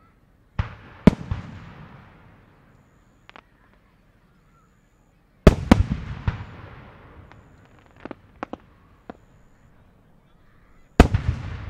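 Japanese aerial firework shells (4-go and 5-go) bursting: sharp booms that echo and die away over a second or two, in three groups about five seconds apart, with scattered smaller pops between.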